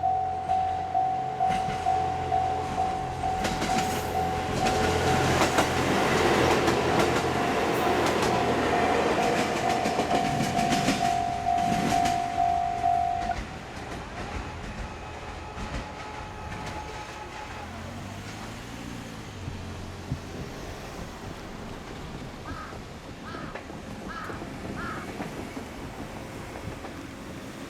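Japanese level-crossing alarm ringing its electronic bell tone about twice a second while a two-car JR Hokkaido H100 diesel-electric railcar passes over the crossing, its running noise swelling and fading. The alarm stops about halfway through, leaving a quieter background.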